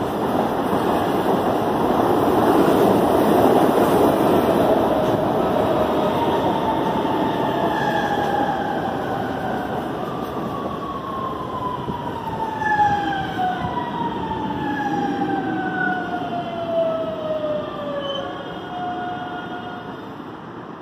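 Electric commuter train pulling into a station: a loud rumble of the cars passing at first, then several whines falling steadily in pitch as the train slows, from its traction motors braking.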